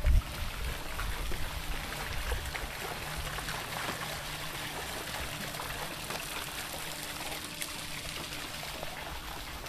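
Water trickling and splashing steadily from a bamboo water-wheel fountain into its stone basin, after a brief thump at the very start.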